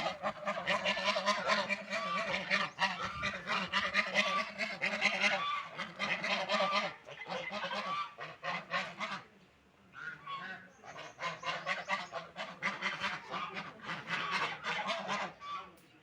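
A group of ducks calling with nasal honking quacks over rapid clicking and slurping of their bills dabbling in food and water. The calls thin out briefly about nine to ten seconds in, then resume.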